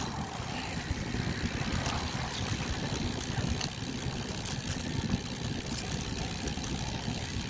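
Wind buffeting a phone's microphone on a moving bicycle: a steady, fluttering low rumble with a hiss over it, and a few faint clicks.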